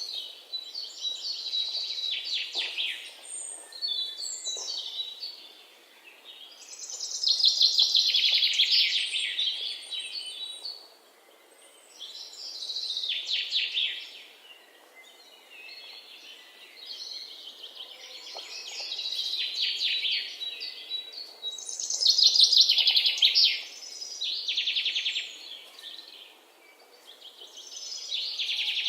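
A songbird repeating a rapid trilled song phrase of about two seconds, again and again every few seconds, over a faint steady background hiss. The loudest phrases come about a quarter of the way in and again about three quarters of the way in.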